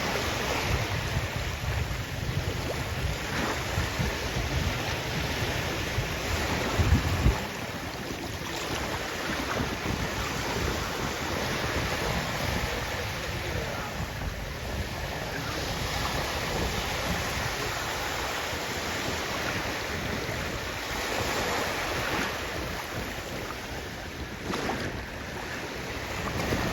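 Sea waves washing and breaking on the shore, with wind buffeting the microphone, the rumble strongest in the first third.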